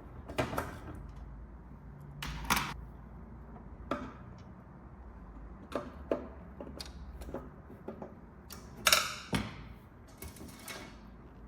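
Scattered clicks and knocks of a screwdriver and a metal bracket being handled as the screws holding the bracket to a key cabinet are undone. The loudest knock comes about three-quarters of the way through.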